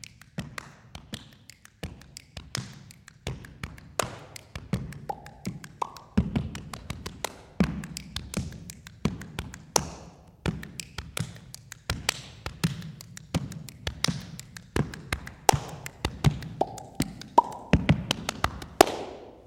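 Solo body percussion: a rhythmic run of sharp claps and slaps over low thumps, with a few short pitched pops mixed in.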